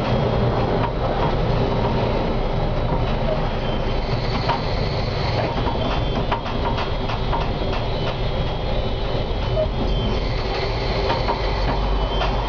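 Konstal 105Na tram running along the track, heard from the driver's cab: a steady rumble of motors and wheels on the rails, with scattered light clicks and a thin high whine at times.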